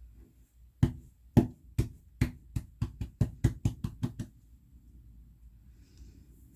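Cloud slime being handled, giving about a dozen sharp pops or snaps that start slowly and speed up to a quick run before stopping.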